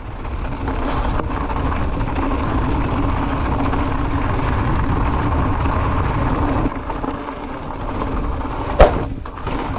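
Mountain bike descending fast: wind rushing over the on-bike camera's microphone and the tyres rolling and humming on the ground, steady for most of the time and easing off about two-thirds through. A single sharp knock, the loudest sound, near the end, as from the bike jolting over a bump.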